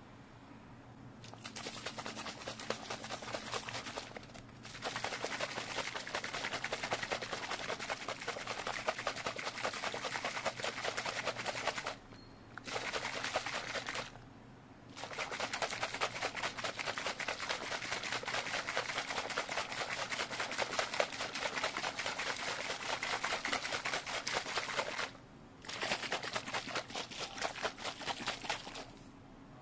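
Plastic shaker cup of protein shake being shaken hard, a rapid, dense rattling that comes in five bursts with brief pauses between them.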